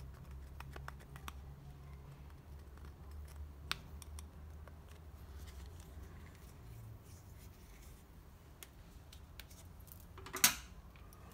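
Faint small clicks and scrapes of a metal pick tool working in the seal holes of a plastic washer-reservoir cap, over a low steady hum. Near the end comes one loud sharp clack as the metal pick is set down on the workbench.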